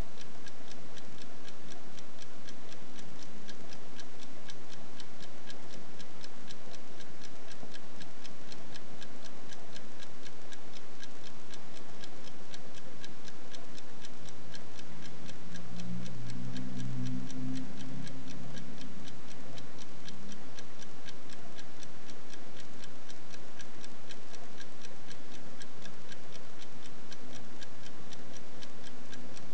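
A Smiths mechanical pocket watch over 50 years old, running and ticking in a rapid, even rhythm from its balance wheel and escapement. A low hum rises briefly in the background about halfway through.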